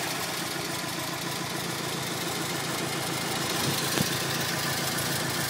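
Subaru Legacy GT's turbocharged flat-four engine idling steadily, heard from underneath the car, with one small tick about four seconds in. No thumping noise is heard: the fault the owner is chasing does not show at idle here.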